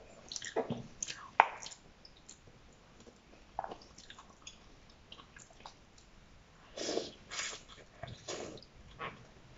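Eating noodles: small clicks and wet chewing, then a few loud slurps of noodles about seven to eight and a half seconds in.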